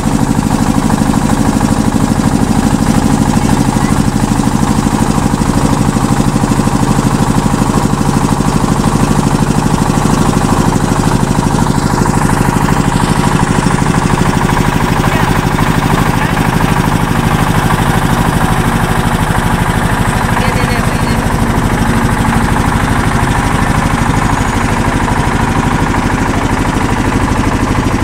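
Motorboat engine running steadily and close, a loud continuous hum with a fast even firing beat.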